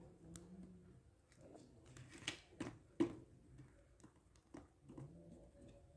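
Packaging being handled and opened by hand: a scatter of sharp clicks and snips, the loudest about three seconds in.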